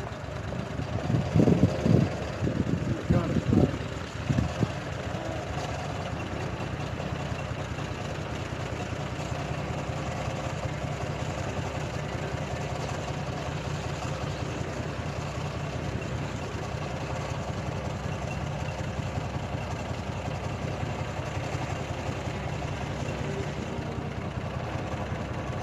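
A boat's engine running steadily at idle speed as the boat creeps along, with a few louder irregular bursts in the first few seconds.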